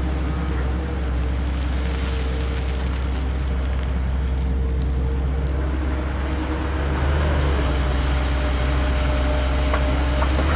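Heavy diesel engines of construction machinery (excavator and dump trucks) running steadily. About seven seconds in, the engine note shifts and gets louder.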